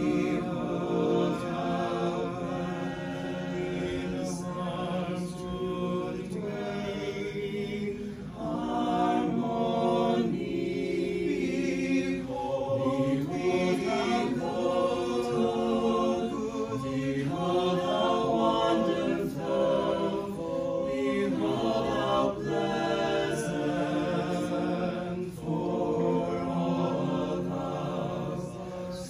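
Small mixed choir of men's and women's voices singing a choral anthem in parts, with held, overlapping notes that move on without a break.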